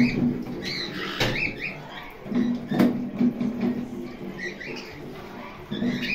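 White-bellied caique gnawing at a walnut shell with its beak, with rasping stretches and a couple of sharp cracks. Short high bird chirps come and go.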